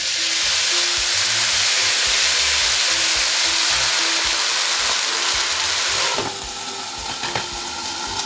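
Hot water poured into a very hot frying pan of seared chicken skewers, hissing and sizzling loudly as it flashes into steam. About six seconds in a glass lid goes on and the hiss drops suddenly to a muffled sizzle.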